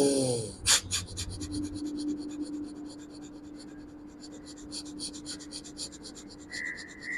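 A person's rapid, short, forceful breaths out in a yoga breathing exercise for wheezing, about six puffs a second in an even rhythm, over a faint steady hum.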